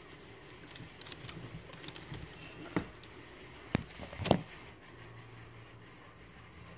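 Scattered light knocks and scrapes of handling in a reptile terrarium, with three sharper knocks about three to four and a half seconds in. A faint low steady hum comes in about five seconds in.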